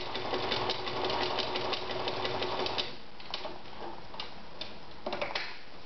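A 1963 Veritas 8016/22 sewing machine running a zigzag stitch, an even, fast clatter of needle strokes, with a slight ringing that the owner puts down to the solid finger that holds the shuttle. It stops about three seconds in, followed by a few separate clicks as the machine is handled.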